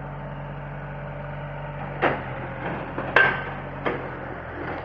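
Three sharp knocks, irregularly about a second apart, over a steady engine hum, typical of pile driving; the second knock is the loudest and rings briefly.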